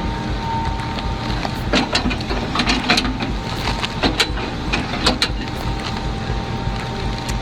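Heavy hydraulic stump-handling machine running with a steady engine drone, with several sharp cracks and snaps of wood between about two and five seconds in as its teeth break into a tree.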